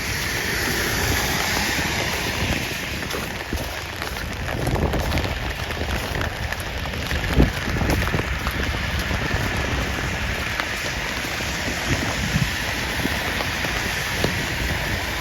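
Steady rain falling on wet pavement, a continuous hiss.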